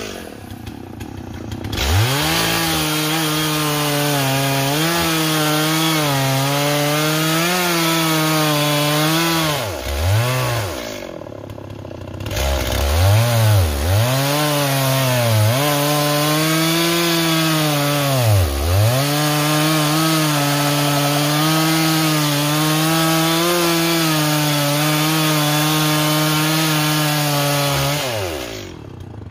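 Stihl 034 two-stroke chainsaw cutting into a large wooden stump at high revs, its pitch wavering under load. It comes up from a low speed about two seconds in, drops off throttle twice, about a third of the way in and again past halfway, revving back each time, and falls away near the end.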